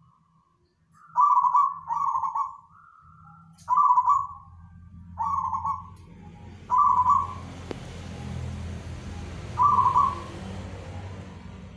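Local Javanese zebra dove (perkutut) cooing in its cage: a series of short coo phrases, about six of them, each a quick run of notes. From about six seconds in, a faint steady hiss and low rumble sit underneath.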